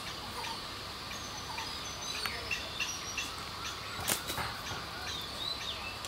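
Outdoor ambience: a steady high hiss with scattered short bird chirps, and a sharp click about four seconds in.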